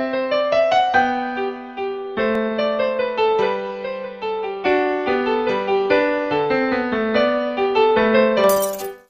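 Background music: a bright electric-piano melody over chords. Near the end comes a short glass-shattering sound effect, and the music cuts off.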